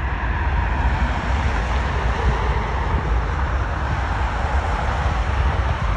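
Jet airliner engines at takeoff thrust: a steady noise, heaviest in the low end.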